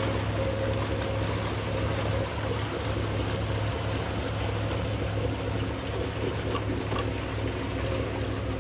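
The twin Chrysler V8 marine engines of a 1923 Elco motor yacht running steadily underway, a low, even drone.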